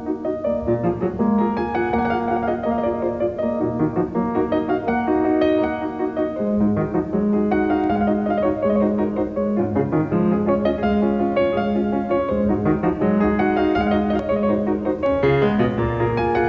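Piano music: a busy, continuous run of notes over held low notes.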